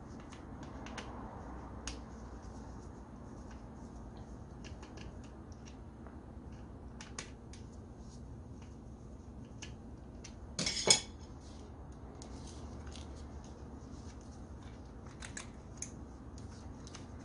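Light metallic clicks and clinks of a screwdriver working at an electric drill's switch and cord connections, as the broken power cord is taken off for replacement, with a louder clatter about eleven seconds in. A low steady hum lies underneath.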